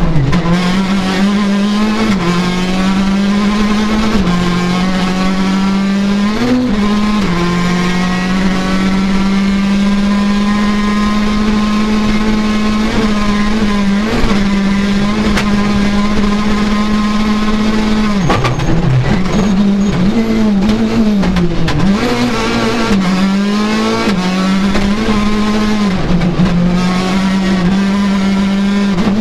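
Citroën DS3 R5 rally car's turbocharged 1.6-litre four-cylinder engine, heard from inside the cabin, running hard at high revs. The note holds steady for about ten seconds in the middle. Quick drops and recoveries in pitch from gear changes come early on, and a rapid cluster of them comes about two-thirds of the way through.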